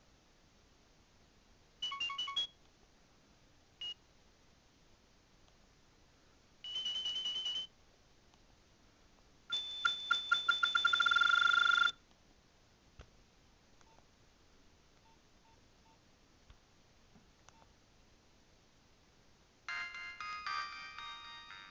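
Nokia 7200 mobile phone playing a string of short built-in alert tones through its speaker: a quick cluster of beeps, a single short beep, then a warbling trill. Next comes a pulsing tone that speeds up into a loud buzz, and near the end a multi-note ringtone melody starts.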